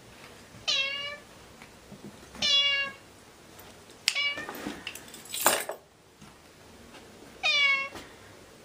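Domestic cat meowing four times, short calls one to three seconds apart. A brief noisy burst comes between the third and fourth meow.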